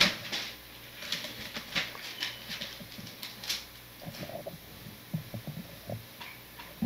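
Thin Bible pages being leafed through: soft, irregular rustling with small scratchy clicks.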